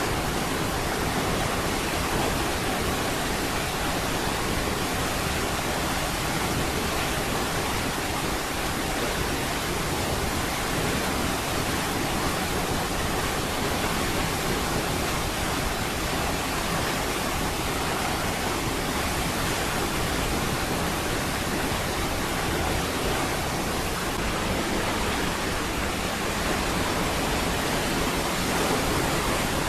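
Waterfall: a steady, even rush of falling water, given as Niagara Falls.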